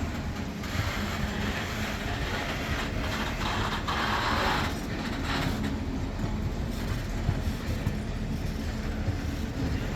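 Steam locomotive 3265, an NSW C32-class engine, working its train with a steady rumble. A louder hiss rises about three seconds in and dies away a second or so later.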